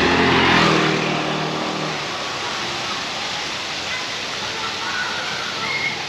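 The tail of the intro music rings out and fades over the first two seconds, giving way to a steady rushing outdoor noise.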